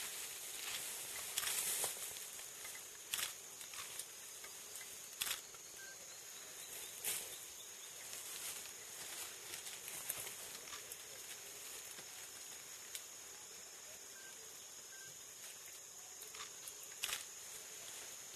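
Forest ambience: a steady high hiss with scattered short snaps and rustles of twigs and leaves, a dozen or so, spread irregularly through the stretch.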